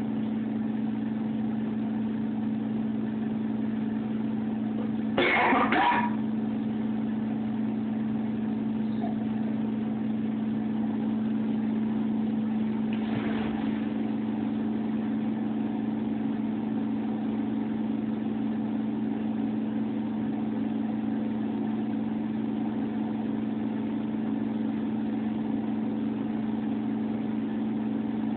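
A steady machine hum throughout, with a brief clatter about five seconds in and a fainter rustle about halfway through.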